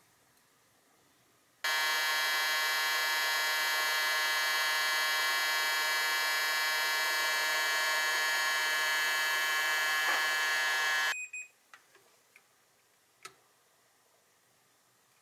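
Hot-air rework station blowing onto the circuit board to desolder the burnt CN3704 charging IC: a steady rush of air with a whine, starting about a second and a half in and cutting off suddenly after about nine seconds. A few light clicks follow.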